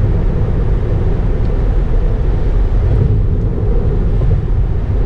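Steady low road and tyre noise inside the cabin of a Tesla Model 3 cruising at highway speed, an electric car with no engine sound.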